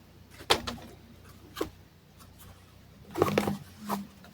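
Scattered light clicks and taps of small objects being handled, with a quick cluster of them about three seconds in.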